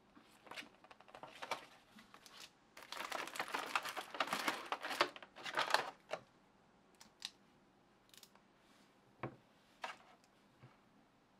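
Paper sheets and plastic packaging rustling and crinkling as they are handled, densest from about three to six seconds in. This is followed by a few light separate taps and clicks as small parts are set down on a table.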